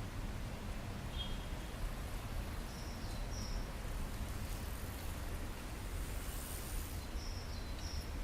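Short, high bird calls, a pair about three seconds in and another pair near the end, over a steady low rumble.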